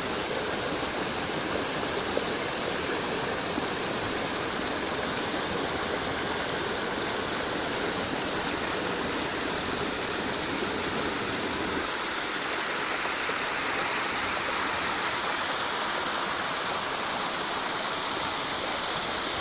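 Small forest creek running over rocks: a steady rush of water. About two-thirds of the way through the sound turns thinner and more hissing as the lower rumble drops away.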